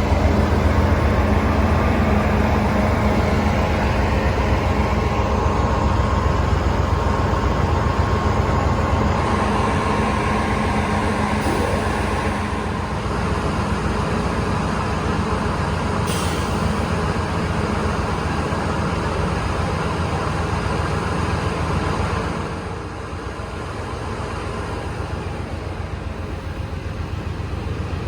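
Amtrak passenger train rolling by on the rails, a steady loud rumble of wheels and cars that drops off noticeably about twenty-three seconds in.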